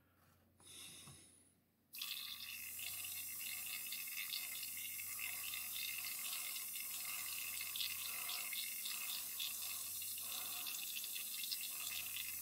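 Gravity-feed airbrush spraying: a steady hiss of air that starts suddenly about two seconds in, run with full air and very little paint coming through.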